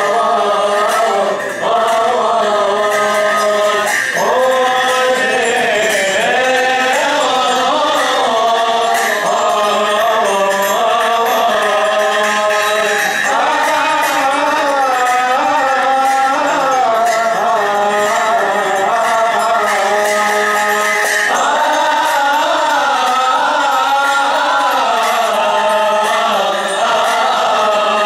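Coptic Orthodox liturgical hymn chanted in a long, winding melismatic line, sung without pause.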